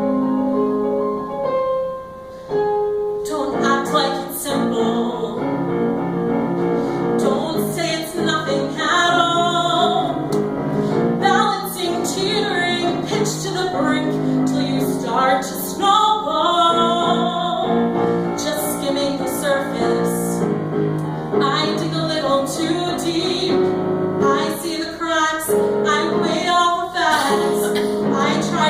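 A woman singing a musical theatre ballad with piano accompaniment: the piano plays alone for the first few seconds, then the voice comes in about three seconds in and carries on over the piano chords.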